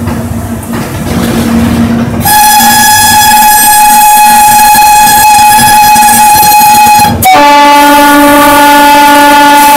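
WAG-7 electric locomotive running with a steady rumble and hum in the cab, then its horn sounds very loud from on board: a high-pitched blast of about five seconds, and straight after it a lower-pitched blast that carries on past the end.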